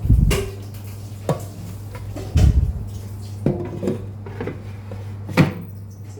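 Kitchen bowls and utensils knocking and clattering, about five separate knocks with some short ringing, over a steady low hum.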